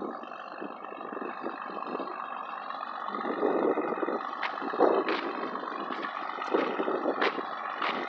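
Crawler bulldozer's engine running, with a pickup truck driving off toward it. The engine noise swells in surges from about three seconds in, and a few sharp clicks are heard.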